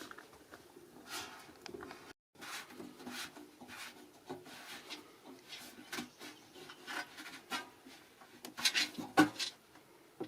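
Irregular rubbing and scraping with small knocks and clicks as a kitchen sink and its plumbing fittings are worked into a wooden cabinet. The sound cuts out briefly about two seconds in.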